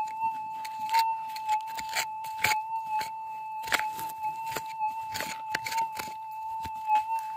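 A small prospecting pick digging into creek gravel and blue clay, with repeated irregular scrapes and clinks of the metal head on stones, several sharper strikes between two and four seconds in. Under it a metal detector gives an unbroken steady electronic tone.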